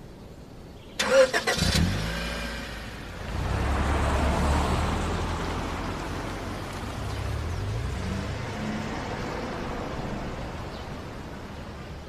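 A car engine is cranked and starts about a second in, revs up, then runs on, slowly fading.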